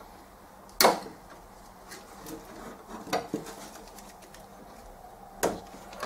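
Handling noises from unpacking a 3D printer: a few sharp knocks and clatters, the loudest about a second in and another near the end, as packing pieces are pulled out and parts are bumped.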